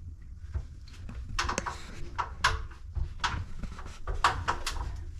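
A string of light knocks and clicks, about a dozen spread over three seconds, over a low rumble of handling noise.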